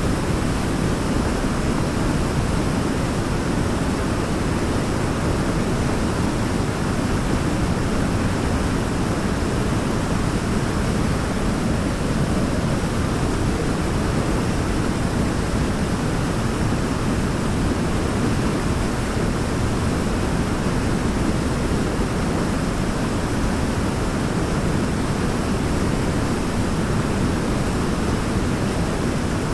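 Waterfall: a steady, unbroken rush of falling water, deepest and loudest in the low end.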